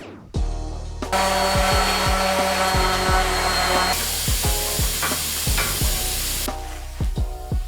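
A power tool runs for about five seconds, starting about a second in and stopping near the end, over background music with a steady beat.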